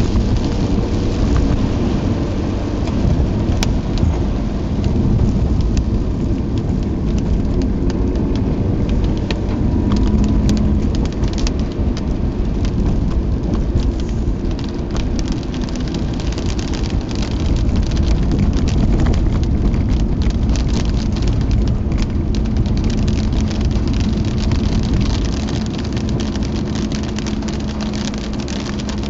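Mazda RX-8 driving on a rain-soaked road, heard from inside the cabin: a steady rush of tyres on wet tarmac with the engine running underneath, and raindrops ticking sharply on the car.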